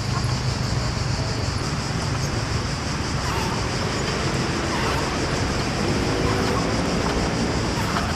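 Steady outdoor background noise with a low hum and a high, even hiss. No distinct sound from the exercise stands out.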